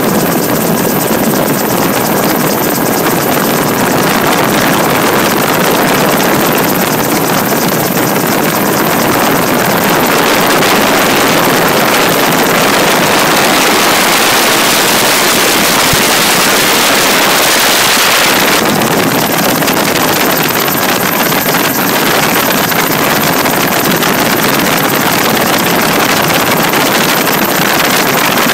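Loud, steady engine and wind noise inside a small aircraft in flight. The airy hiss swells for several seconds in the middle, then settles back.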